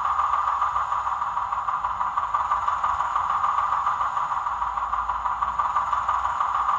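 Digital sound of a Class 07 diesel shunter's engine idling, played by a ZIMO sound decoder through the small speaker in a Heljan OO gauge model locomotive. A steady, even drone with little bass and a quick flutter.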